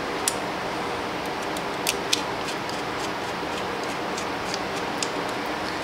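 Light metallic clicks and taps of small knife parts, screws and a small driver being handled during reassembly of a folding knife, a few sharp ticks scattered over a steady background hiss.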